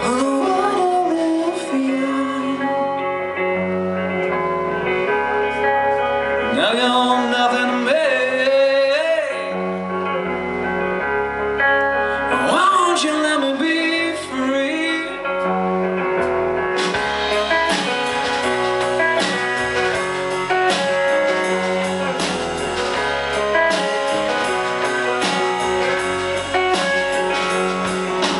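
Live rock band playing: electric guitars and bass with a man singing. About seventeen seconds in, the drums and cymbals come in fully.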